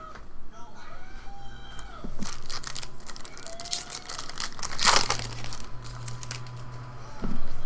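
Foil wrapper of a 2014 Upper Deck SP Authentic Football card pack crinkling and tearing as it is ripped open by hand: irregular crackles, loudest about five seconds in.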